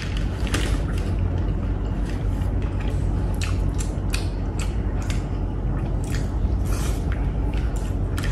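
Short, scattered rustles of brown wrapping paper as fingers pick through a rice meal spread on it, with chewing, over a steady low hum.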